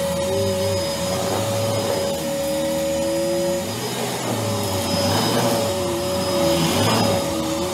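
Upright vacuum cleaner running steadily as it is pushed back and forth over carpet, its motor hum wavering up and down with each stroke.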